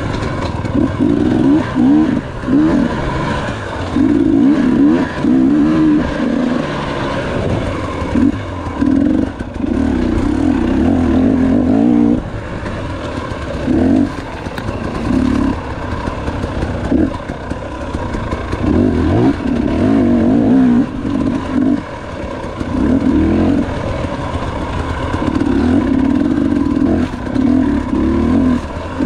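Off-road dirt bike engine revving hard and dropping back again and again as the throttle is worked through the race trail, the note rising and falling every second or two.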